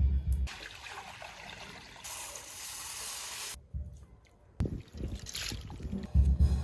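Water trickling and splashing, as when food is rinsed or water is poured, for the first few seconds. Low thumps follow after a short lull.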